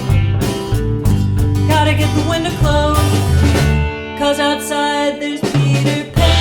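Band music: an instrumental passage of a song, with guitar over a bass line. The bass drops out for a moment in the middle.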